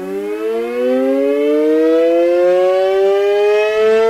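Outdoor severe-weather warning siren winding up, its pitch rising slowly and steadily: the alarm for a severe storm.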